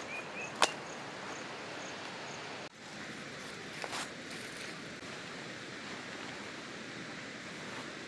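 Steady hiss of falling water, with a few short bird chirps at the very start and a sharp click just over half a second in, and a fainter one about four seconds in.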